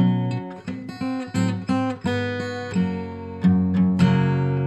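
Background music: acoustic guitar strumming chords.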